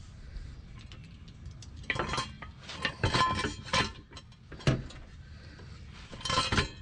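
Metal clinking and knocking from exhaust parts and tools being handled, in several short clusters of sharp clicks.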